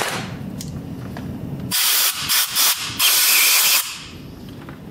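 Compressed-air blow gun hissing in a few short blasts starting about two seconds in, then one longer blast of almost a second, blowing the metal chips out of a freshly tapped head stud hole in an engine block.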